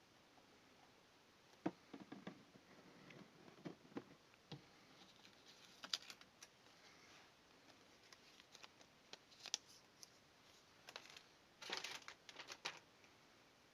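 Scattered light clicks and short rustles of hardware and packaging being handled, with a busier cluster of clicks near the end.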